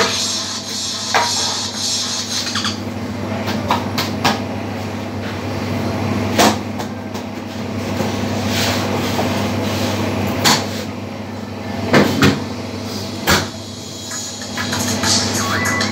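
Scattered knocks and clatters of a round metal baking pan and hands on a stainless-steel worktable as burek dough is laid into the pan: about nine sharp knocks spread out, the loudest few near the end, over a steady low hum.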